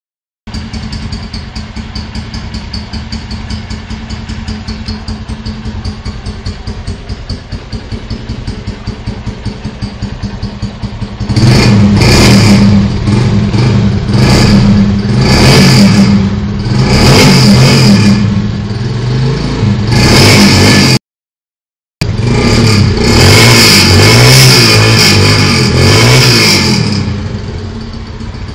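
A vehicle engine with a loud 'bate lata' exhaust idles with an even, rapid beat. From about eleven seconds in it is revved hard in a series of blips, with a one-second break in the sound near the middle of the revving. It settles back to idle near the end.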